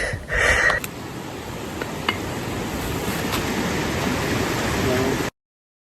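A brief whisper, then a steady rushing noise that cuts off abruptly to dead silence about five seconds in.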